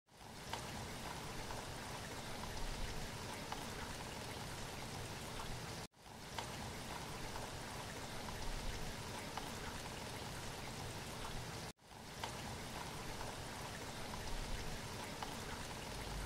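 Steady rain: an even hiss with scattered drop ticks, breaking off for a moment twice, about six and about twelve seconds in.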